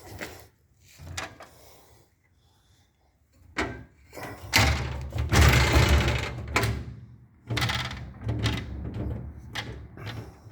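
Metal parts of an ATM being handled: several clunks and knocks, and near the middle a louder scraping slide of about two seconds, like its metal drawer sliding.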